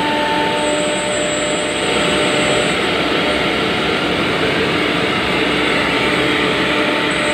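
JIYU multi-spindle CNC nesting router running steadily: a spindle whine over the rush of its dust extraction, with a faint high whistle for a couple of seconds near the start.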